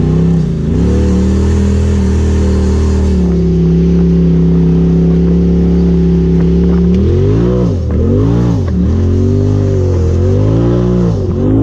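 Engine of a turbocharged Polaris RZR side-by-side heard from the cab, running at steady revs for a few seconds. Near the end the revs dip and climb again several times as the throttle is let off and reapplied.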